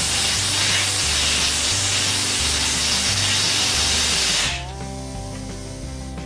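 Compressed-air blow gun on a hose hissing in one long blast, cutting off about four and a half seconds in. Background music with a steady bass line plays throughout.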